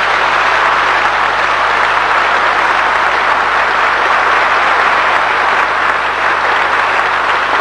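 Audience applauding steadily after the climax of a speech: dense, even clapping from a large crowd.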